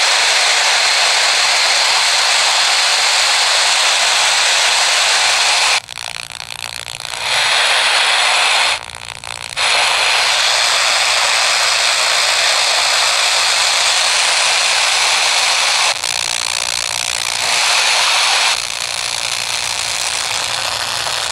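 FM radio static from an E388 bird-call speaker's built-in radio: a loud, steady hiss between stations. It drops out briefly a couple of times and shifts a little later on as the tuning frequency changes.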